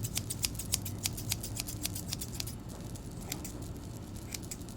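Scissors snipping close to the microphone: a quick run of crisp metal snips, about six a second, that thins out after about two and a half seconds into a few scattered snips.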